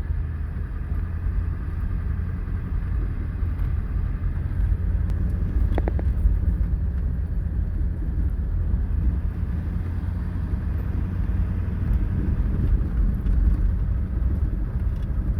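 A vehicle driving, a steady low rumble of engine and tyres, with a brief squeak about six seconds in.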